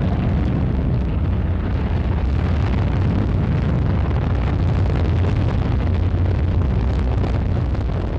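Ariane 5 rocket lifting off: the steady, deep roar of its solid rocket boosters and main engine, with a crackle running through it.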